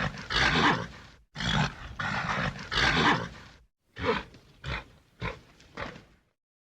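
A bull bellowing: two long rough bellows, then four short grunts in quick succession.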